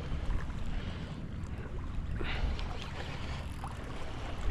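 Wind buffeting the microphone in a steady low rumble, with water lapping against a kayak's hull.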